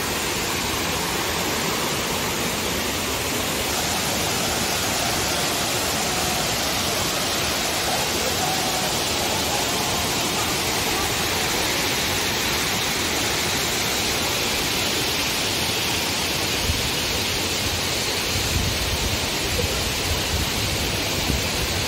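A large, fast-flowing waterfall and the rocky cascades below it, giving a steady, dense rush of falling water. A low rumble comes in near the end.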